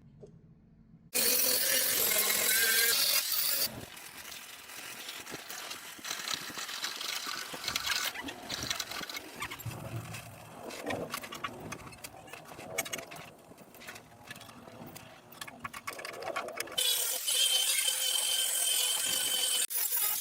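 A hissing spray jet in two long, loud bursts, about a second in and again near the end, with irregular knocking and clatter between them.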